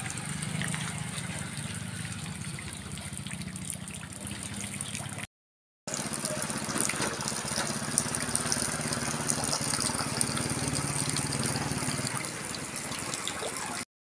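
Heavy rain falling steadily, with a small motorcycle engine humming underneath until near the end. The sound drops out briefly about five seconds in.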